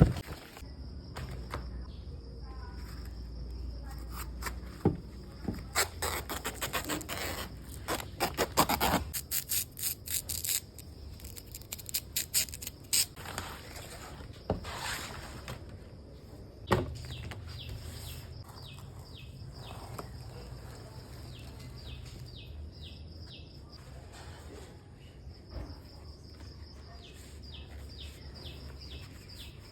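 Outdoor sounds: a spell of rapid clicks, knocks and crackles in the first half, then birds chirping repeatedly in short quick notes, over a steady low hum.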